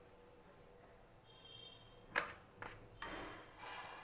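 Metal spoon clinking against a glass bowl and plastic tray while melted chocolate is spooned out: one sharp clink about halfway through, a couple of lighter knocks, then a short scrape near the end.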